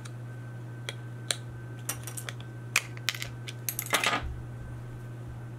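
Small scattered clicks and taps of a plastic Lego plate and a steel brick separator tool being handled, with a short clatter about four seconds in as they are set down on a wooden workbench.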